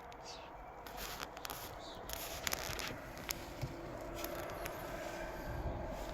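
Scattered light clicks and rustling, handling noise from someone moving about inside a car's cabin.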